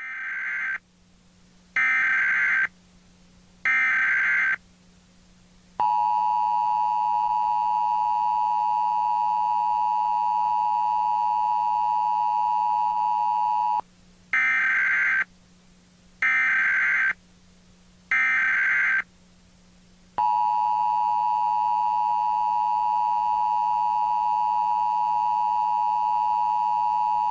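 Emergency Alert System tones: three short screeching SAME data bursts, then the two-tone attention signal held steady for about eight seconds. The three bursts and the attention signal then repeat, over a faint steady low hum.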